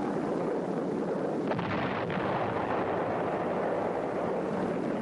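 Continuous rumbling roar of a bombing barrage, with the blasts run together into one steady noise and no single explosion standing out; it swells a little about a second and a half in.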